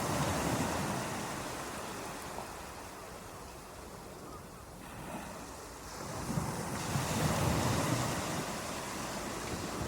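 Ocean waves breaking on a beach: a steady rushing surf that fades in the middle and swells again as the next wave comes in.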